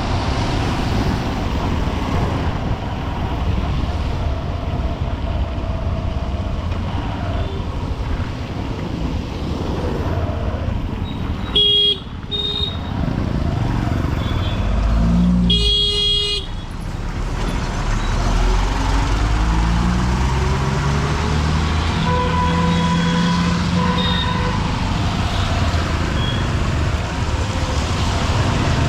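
Honda SP125's single-cylinder engine running in heavy city traffic, with vehicle horns honking: a short honk about twelve seconds in and a longer one around sixteen seconds, and fainter horns later. An engine note rises around twenty seconds in.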